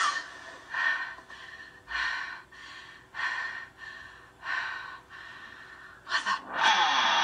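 A woman's heavy gasping breaths, about one a second, heard through a television's speaker. Two quicker breaths come near the end, and then music comes in.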